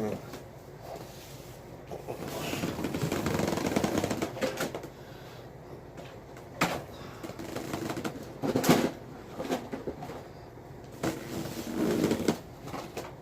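Cardboard mailer being worked open by hand: a long stretch of rustling and scraping cardboard, a few sharp snaps or knocks, then more rustling near the end.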